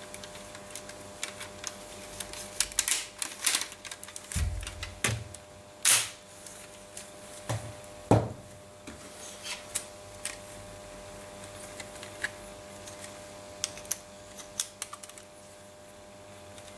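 Plastic LEGO bricks of a brick-built toy gun clicking and rattling as it is handled, turned over and set on a wooden tabletop. Irregular clicks with a few louder knocks, the loudest about six seconds in, over a faint steady hum.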